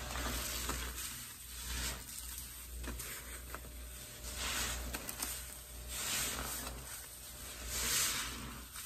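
A wet sponge full of pine-cleaner suds being squeezed again and again, about five squeezes, each letting out a fizzing, sizzling rush of foamy water.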